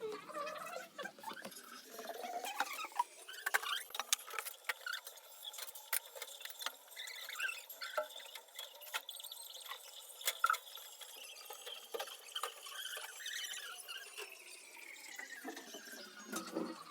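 Electric welding arc crackling: a dense, irregular crackle of sharp clicks, with a faint high whine that slowly rises and falls.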